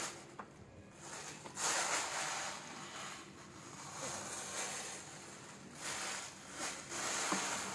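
Rustling and handling noises from fitting parts of a plastic study chair by hand, with a couple of faint clicks.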